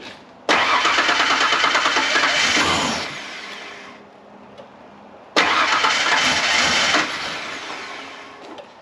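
1996 Ford Ranger's 3.0-litre V6 being cranked over by a new starter motor in two tries of about two and a half seconds each, each one fading out afterwards. The engine does not settle into running.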